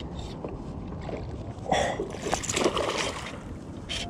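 Water sloshing and splashing around a paddleboard while a hooked largemouth bass is fought at the surface, with a few short louder splashes near two and three seconds in and again just before the end.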